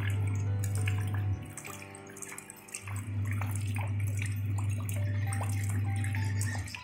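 Rain falling into a shallow puddle, with many separate drops splashing on the water. Under it runs soft background music of held notes and a loud deep bass note, which drops out for about a second and a half starting a little after one second in.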